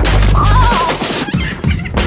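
A sudden crash sound effect as a cartoon character hits the road, then music with a melody and a regular beat.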